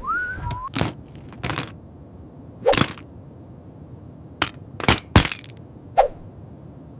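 A string of sharp cracks and knocks, about eight of them at uneven intervals, opening with a brief whistling tone that rises and then falls.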